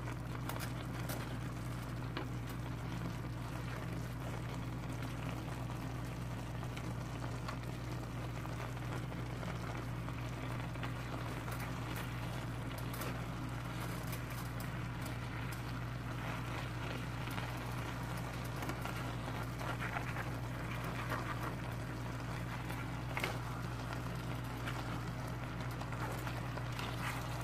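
Pan of vegetables, pork and rice noodles bubbling and hissing on the heat, with scattered light clicks of plastic tongs against the nonstick pan as the noodles are tossed, over a steady low hum.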